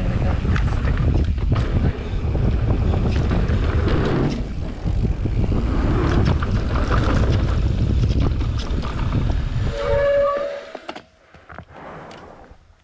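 Wind rushing over an action camera's microphone while a mountain bike rides fast down a dirt trail, with tyre rumble and rattling clicks from the bike. About ten seconds in, a short high brake squeal sounds as the bike slows, and the rushing noise drops away.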